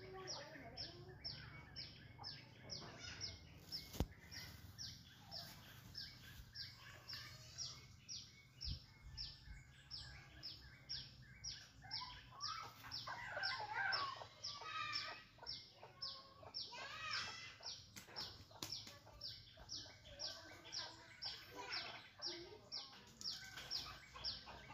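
Birds chirping in a steady rhythm, two to three short falling chirps a second, with louder, more varied calls in the middle. One sharp click sounds about four seconds in.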